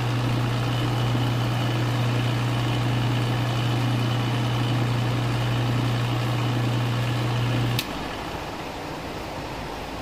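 Mastercool portable refrigerant recovery machine running with a steady hum while purging. About eight seconds in it is switched off with a click and the hum stops abruptly.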